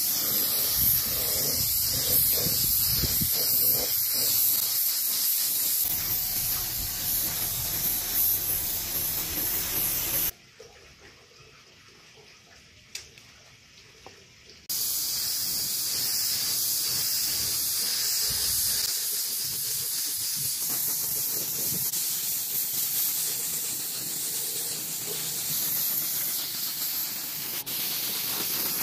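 Steady spraying hiss that cuts off suddenly about ten seconds in, stays off for about four seconds, then starts again.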